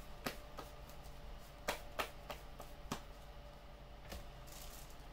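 Trading cards being put down and flipped on a table: about seven light, sharp clicks at uneven intervals, with a short rustle of cards near the end.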